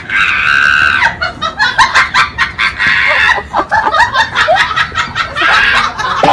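People laughing loudly with shrieks and squeals, in quick bursts.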